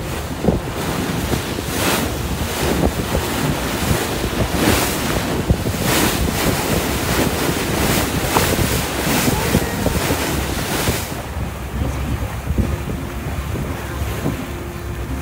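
Water rushing and splashing along the hull of a moving fishing boat, with wind gusting on the microphone and the boat's engine running underneath. About eleven seconds in, the splashing and gusts ease, leaving a steadier engine hum.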